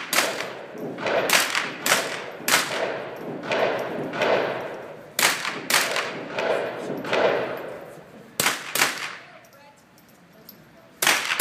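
A string of about a dozen rifle shots fired at an uneven pace during an action rifle stage, each shot trailing off in an echo. A pause of about two seconds comes before one final shot near the end.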